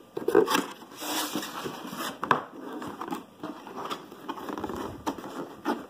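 Hand scraping, tapping and sliding a cardboard box while working its lid open: a run of irregular knocks, scuffs and rustles, the sharpest about a third of a second and two and a quarter seconds in.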